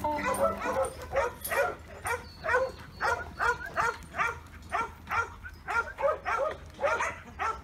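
Young black and tan Kelpie yard dog barking repeatedly while working sheep, a steady run of short barks about two to three a second.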